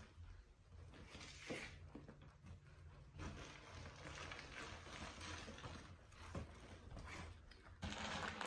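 Faint rustling and scraping of the plastic wrap on a rolled-up mattress as it is pressed and handled on carpet, with a few soft knocks.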